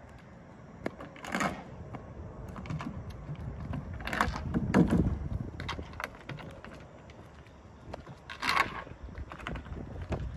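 Skateboard wheels rolling on rough asphalt with a low rumble, broken by several sharp clacks and scrapes of the board, the loudest about halfway through.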